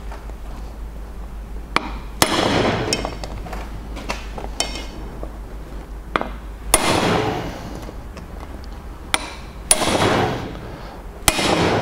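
Ball-peen hammer striking a hand impact screwdriver to break loose corroded screws in a Honda BF40 outboard's gearbox case. About four hard metallic blows a few seconds apart, each ringing briefly, with lighter taps between.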